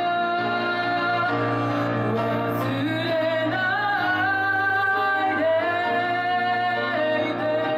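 Live pop music with a sung vocal line over instrumental accompaniment, the melody holding long notes that slide between pitches.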